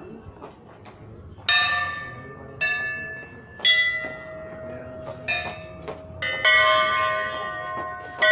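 Metal bells struck one after another, about five loud strikes at uneven intervals, each ringing on with several clear tones that overlap the next.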